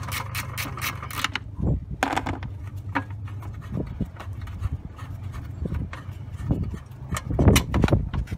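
Small ratchet with a T40 Torx bit clicking rapidly as a bolt is turned out, stopping after a little over a second. Then scattered handling knocks and bumps over a steady low wind rumble on the microphone, the loudest bumps near the end.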